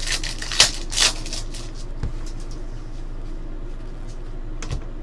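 Trading cards being handled: two short rustling swishes about half a second and a second in, then a couple of faint taps, over a steady low hum.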